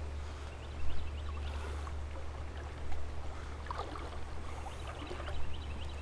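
Daiwa 2500 LT spinning reel being cranked to retrieve a lure, its faint whirring and ticks over a steady low rumble.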